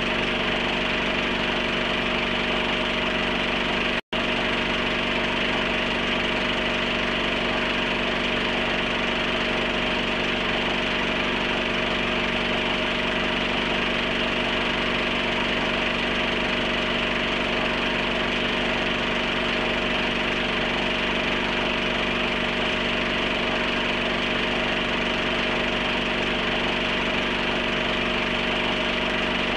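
Steady mechanical hum and whir with a hiss over it, unchanging throughout, cutting out for an instant about four seconds in.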